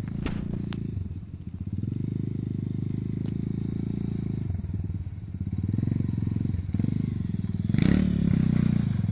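Rusi KRY 200 dirt bike's single-cylinder engine running as it is ridden over rough rocks, the throttle opening and easing off several times. It is loudest near the end as the bike comes closer. A few light clicks come near the start.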